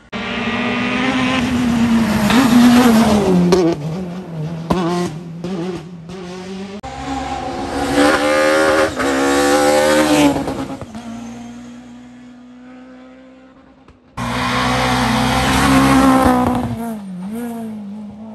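Rally cars at full throttle passing at close range, engines revving hard with pitch rising through the gears and falling away; three separate passes with abrupt cuts between them, the middle one a BMW E30 M3.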